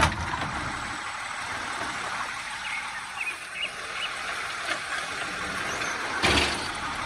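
Water running steadily as a muddy toy is rinsed in it, with a louder splash about six seconds in.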